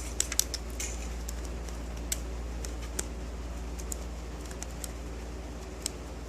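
Light, irregular clicks and taps of a Sparco stand-up stapler's metal slide piece and tabs being worked against its spring while they are not yet seated in their slots. The clicks come in a quick cluster at the start, then singly about once a second, over a steady low hum.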